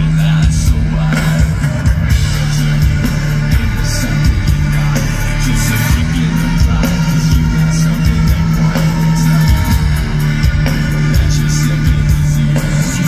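Live rock band playing loudly through a PA: electric guitar, drum kit and a singer singing into the microphone.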